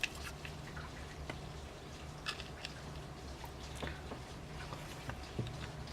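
Faint, scattered clicks and taps of a plastic power-adapter case being handled, over a low steady hum.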